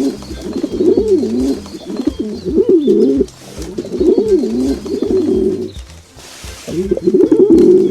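Birds cooing: low, warbling calls repeated in phrases a few seconds long with short pauses between, and a brief hiss about six and a half seconds in.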